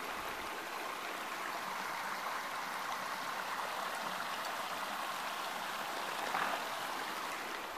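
Small, shallow mountain creek running over stones and leaves, a steady, even rush of water.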